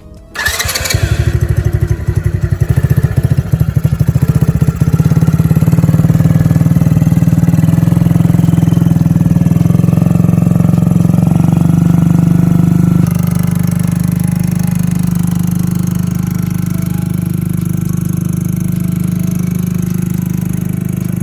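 4-wheeler (ATV) engine starting up about half a second in, then running steadily, somewhat quieter from about two-thirds of the way through, as it tows a strapped-on riding lawn mower.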